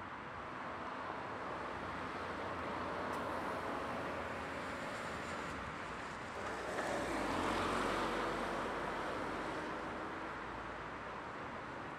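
A smart fortwo city car driving past, a steady hiss of tyre and engine noise that swells, dips, then swells louder about seven to eight seconds in before fading away.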